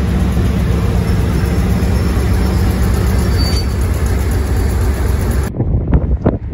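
A Class 56 diesel locomotive's Ruston-Paxman V16 engine running loud and steady as the locomotive moves past. It cuts off suddenly about five and a half seconds in, leaving wind buffeting the microphone.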